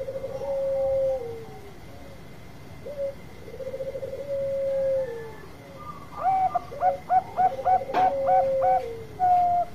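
Zebra dove (Bangkok-type perkutut) cooing: long coos that open with a quick trill and slide down at the end, then a rapid run of short clipped notes from about six seconds in. A single sharp click about eight seconds in.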